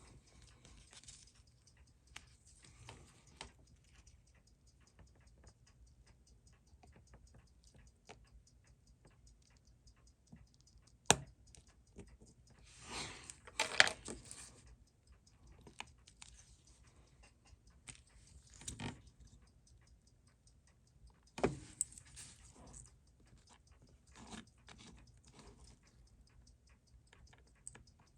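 Small metal tools clicking and scraping on a wristwatch being taken apart: scattered sharp clicks, the loudest about eleven seconds in, and short scraping bursts, over a faint, fast, steady ticking.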